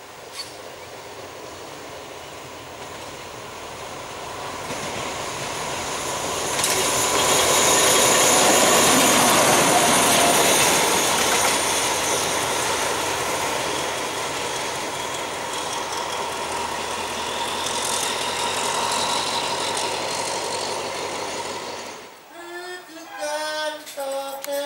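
A State Railway of Thailand diesel locomotive approaching and running past, with engine noise and wheels on the rails. It grows louder over the first few seconds, is loudest about eight to ten seconds in, and cuts off suddenly a couple of seconds before the end, where a song with singing begins.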